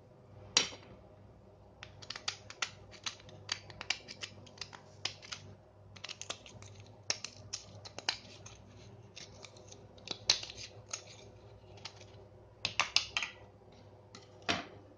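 Rapid, irregular clicking and scraping of small hard parts being handled, with a few louder knocks about half a second in, around thirteen seconds and near the end, over a faint steady hum.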